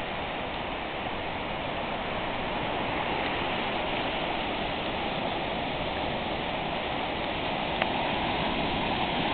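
Rough-sea surf breaking and washing up a sandy beach: a steady rush of waves and foam, a little louder after about three seconds, with one brief click near the end.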